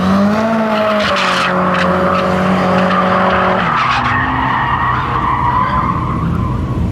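A drift car's engine held at high revs with tyres squealing through a slide; the engine note drops a little under four seconds in while the tyre squeal carries on.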